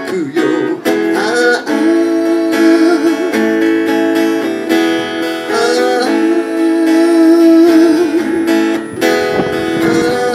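Live acoustic guitar strumming with a singer's voice holding long wavering notes over it, played through a PA.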